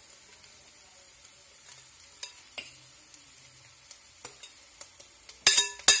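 Metal spoon scraping cooked clam meat out of a ceramic dish into an aluminium pot of masala, with scattered light clicks and scrapes, then a few sharp knocks of the spoon against the dish near the end.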